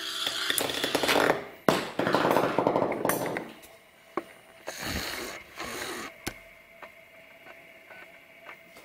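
Metal spinning top rattling and chattering against a glass mirror surface, with a sharp knock about two seconds in and another past the middle. It then dies away to a few small ticks.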